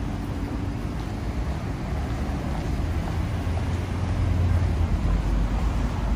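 City street traffic: a steady low vehicle engine rumble that grows louder partway through, as a vehicle passes close by.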